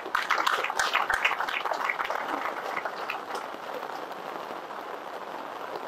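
An audience applauding, densest in the first couple of seconds and then fading to a thin patter of claps.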